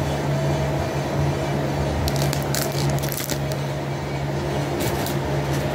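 Steady low hum of a running fan, with brief crinkling of packaging being handled twice, about two to three seconds in and again near the end.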